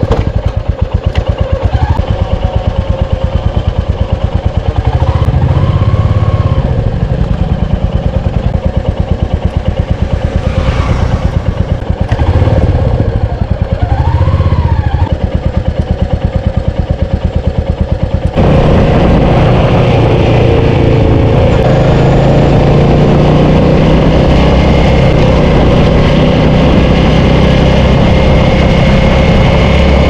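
Royal Enfield Meteor 350's single-cylinder engine running under way, uneven at first at low speed on rough ground. A little over halfway it changes abruptly to a steadier, denser run.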